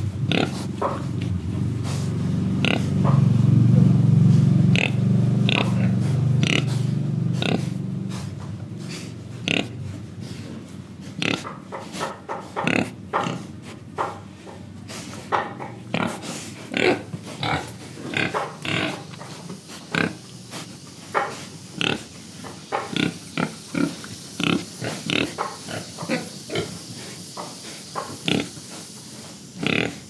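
Young pigs grunting close to the microphone. A dense low run of grunts fills the first several seconds, then gives way to a string of short, sharp grunts and snorts, about one or two a second.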